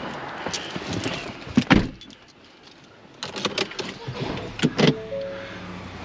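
Inside a truck cab, a door thumps shut about a second and a half in, followed by a run of clicks and rattles. Near the end a steady low engine hum sets in, with a few short electronic tones.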